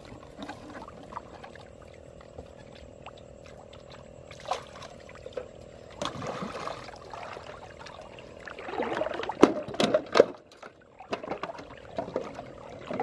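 Shallow muddy water splashing and sloshing as plastic-bottle fish traps are pulled up and emptied into a metal pot. A cluster of sharp knocks and splashes comes about three-quarters of the way through.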